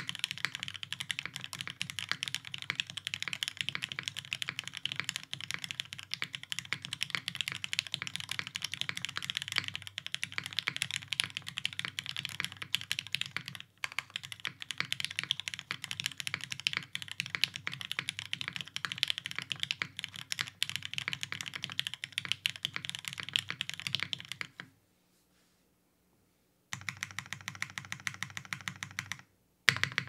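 Fast, steady typing on an Ottantaquattro top-mount mechanical keyboard: lubed Gateron Black Ink V2 linear switches in an undampened aluminium plate, under GMK keycaps, making a quick patter of keystrokes. The typing stops for about two seconds near the end, then resumes.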